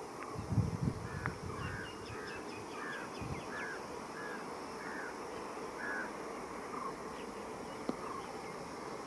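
Trackside ambience: a bird repeating a short call about twice a second over a steady high insect drone, with a few low rumbles in the first couple of seconds.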